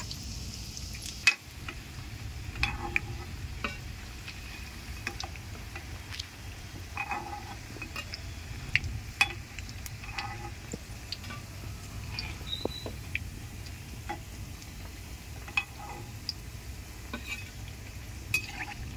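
Soybean kofta balls frying in hot oil in a metal kadhai, a steady sizzle, while a steel spoon scrapes and knocks against the pan in scattered sharp clicks. The loudest knock comes about a second in.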